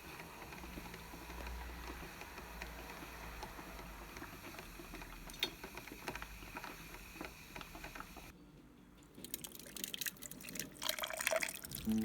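Water running steadily for about eight seconds, then a short pause and a run of small clicks and knocks near the end.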